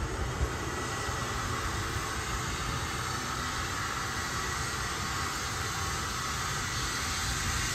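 Steady jet aircraft noise on an airport ramp: an even hiss over a low rumble, with a faint steady high whine.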